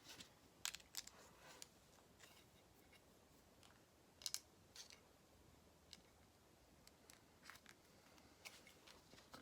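Faint, scattered clicks and taps of small plastic Lego pieces being handled and pressed together. The loudest is a quick double click about four seconds in.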